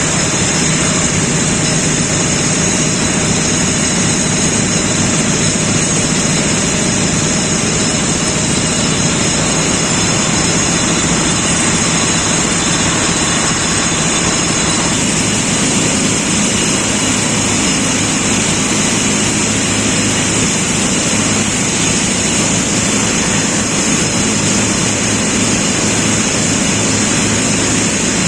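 Diesel engine running steadily, with a loud continuous high hiss over a low rumble, as an excavator is filled with diesel.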